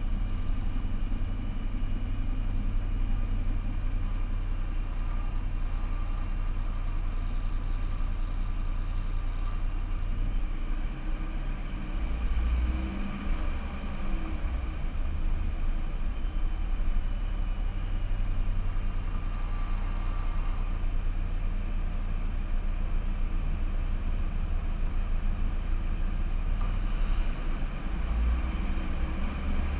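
Steady low rumble of a car driving, engine and tyre noise picked up by a camera mounted on the car.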